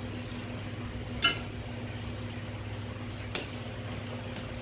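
Fork mixing egg and prawns in a stainless steel bowl, clinking sharply against the metal about a second in and again past three seconds, over a steady low hum.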